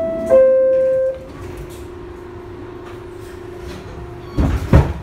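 R62A subway car's two-note falling door chime at the start, followed by a steady hum from the train. Near the end comes a loud clattering burst.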